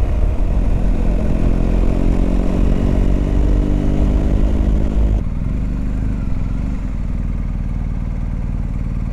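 BMW R 1250 GS Adventure's flat-twin boxer engine pulling the loaded bike up a steep incline. About five seconds in the throttle closes and the sound drops suddenly to a quieter, steady lower note as the bike slows.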